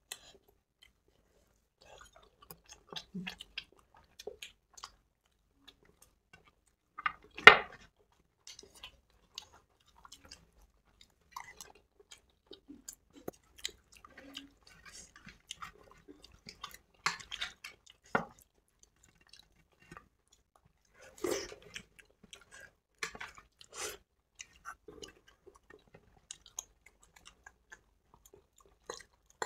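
Close-miked eating: two people chewing soft South Indian food such as idli, dahi vada and chole bhature, with scattered soft clicks of spoons at the bowls. A few louder knocks come through, the loudest about seven seconds in.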